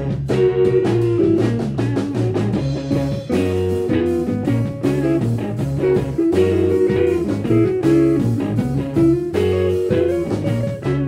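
Band playing an instrumental break with no vocals: a guitar line over changing bass notes and drums.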